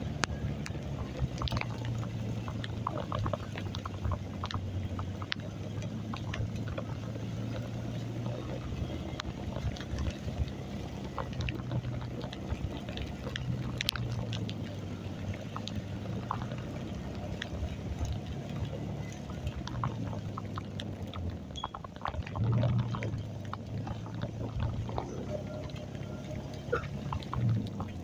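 Motorcycle engine running while riding through heavy rain, its low hum shifting up and down in pitch with speed, under the hiss and splash of rain and many small ticks of drops; a short louder swell about 22 seconds in.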